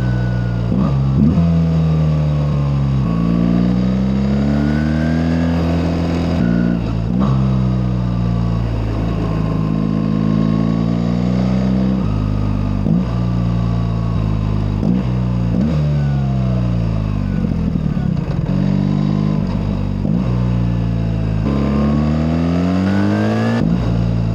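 BMW R1300GS boxer-twin engine, fitted with a Healtech servo eliminator, pulling through the gears: its pitch climbs, drops sharply at each shift a few times, and sometimes falls away as it slows.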